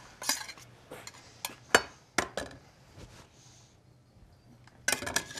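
A metal spoon clinking against a small stainless saucepan and a ceramic plate as raisin escabeche is spooned out onto the plate. There are a few light clinks, the sharpest about two seconds in, then a quiet stretch before another short clatter near the end.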